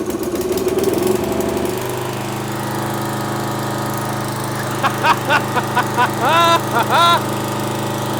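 John Deere S92 riding mower's 11-horsepower engine cranked on full choke after sitting for years, catching about two seconds in and settling into a steady idle. From about five seconds in, a run of short high-pitched calls sounds over the engine.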